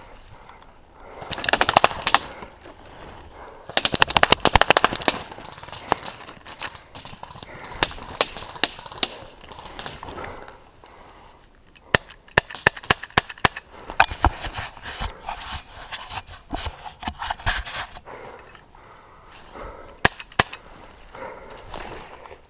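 Airsoft guns firing: two long rapid-fire bursts in the first few seconds, then a stretch of shorter bursts and single shots about halfway through, with a few more shots near the end.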